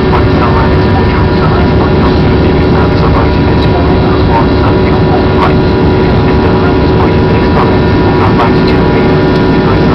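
An airliner's jet engines heard inside the cabin during the climb after takeoff: loud, steady engine noise with a few constant tones running through it.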